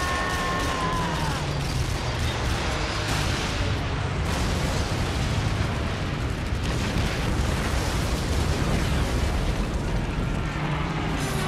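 Film battle soundtrack of explosions on a warship: continuous blasts and rumbling fire with a musical score underneath. A held tone slides down and fades just over a second in.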